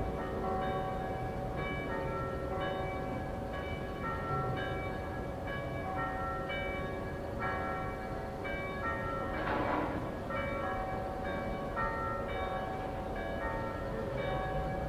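Church bells of the cathedral tower rung close up in a festive peal, many bells striking over one another in a dense, continuous pattern. A brief rush of noise sounds just past the middle.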